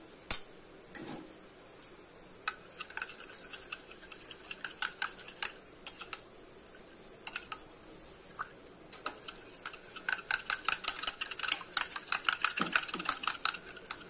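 A metal spoon stirring and beating a little milk in a small stainless steel bowl, clinking against the sides: scattered taps at first, then quick, rapid clinks in the last few seconds as the stirring speeds up.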